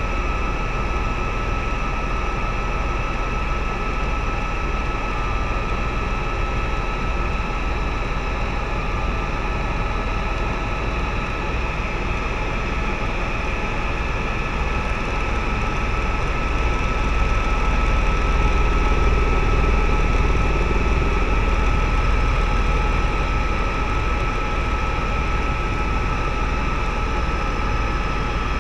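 Helicopter cabin noise in steady flight: a deep rotor and engine rumble with a constant high whine on top, a little louder for several seconds past the middle.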